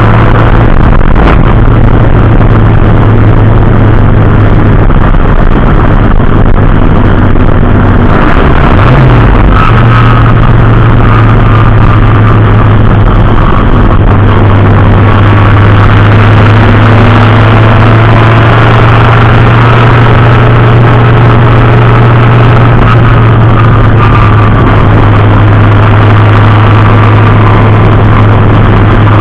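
Race car engine running loud at steady revs, with a brief drop and recovery in pitch about nine seconds in.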